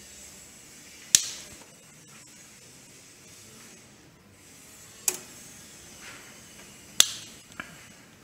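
Small steel cap screws dropped one at a time into a metal parts bucket: three sharp metallic clinks a few seconds apart, each with a short ring after it. Between them there is only the quiet of the screws being backed out with an Allen wrench.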